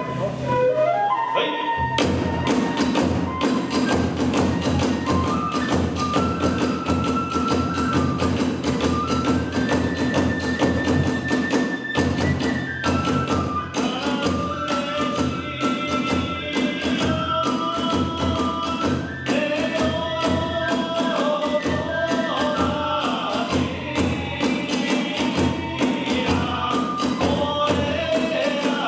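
Kagura hayashi accompaniment: a bamboo flute playing a melody over quick, steady drumbeats and clashing hand cymbals, the full ensemble coming in about two seconds in.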